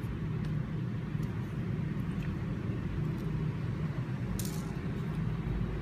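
Steady low background rumble, like road traffic, with a few faint clicks and a short hiss about four and a half seconds in.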